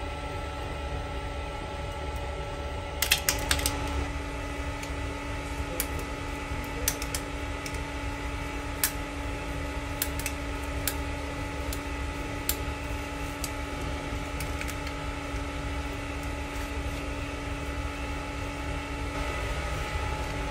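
A flat scraper clicking and scraping against a 3D printer's glass bed as a freshly printed part is pried loose. Scattered sharp clicks, the loudest cluster a few seconds in, over a steady fan hum.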